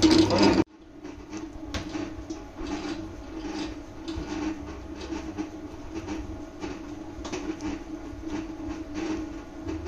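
A stand mixer kneading dough runs loudly and cuts off abruptly under a second in. After that a silicone spatula scrapes and presses soft butter against a small steel bowl in many small irregular strokes, over a steady hum.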